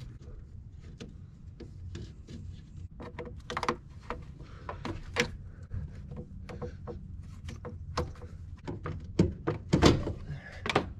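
Screwdriver turning a hose clamp, then the Mazda Miata's rubber intake tube being worked loose and pulled off the throttle body: scattered clicks, taps and knocks of tool, clamp and plastic, the loudest a thump near the end.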